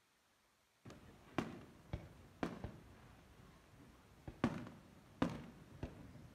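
Aerial fireworks shells bursting in quick succession: about eight sharp bangs, each trailing off in an echoing rumble, starting abruptly just under a second in.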